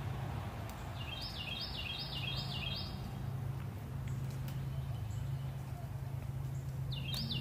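A steady, deep, unexplained hum or drone hangs in the air, the eerie sky sound the recording was made to capture. Over it a songbird sings a phrase of five quick repeated whistled notes about a second in, and starts the phrase again near the end.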